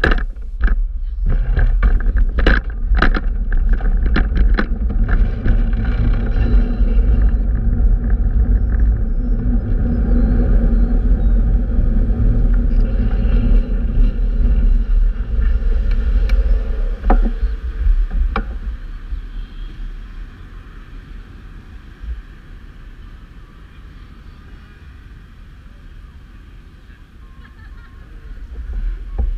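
Low wind rumble on the microphone of a moving bicycle, mixed with city street traffic, with a few sharp clicks in the first few seconds. The rumble dies down about 19 seconds in to a quieter traffic hum, swelling again near the end.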